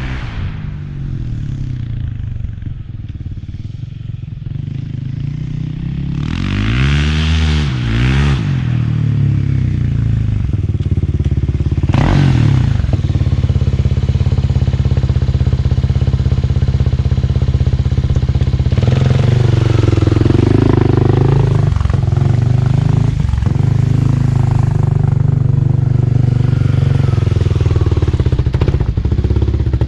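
Kawasaki KLX300R single-cylinder four-stroke engine running through a newly installed Pro Circuit T6 full exhaust: idling, revved in a few quick throttle blips about a quarter of the way in, then settling into a steady, somewhat louder idle.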